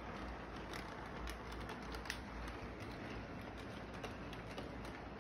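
Model train running on its track: a steady low hum and hiss with irregular light clicks and ticks.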